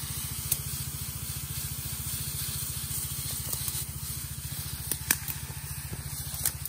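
High-pressure herbicide spray gun hissing as it sprays a jet onto undergrowth, over the steady, fast-pulsing run of a small petrol engine (Robin 3.5) driving a power sprayer pump. A few light clicks come about five seconds in.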